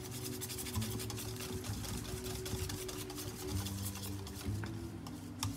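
Wire whisk beating batter in a stainless steel bowl, the wires clicking rapidly and continuously against the metal as lumps are worked out.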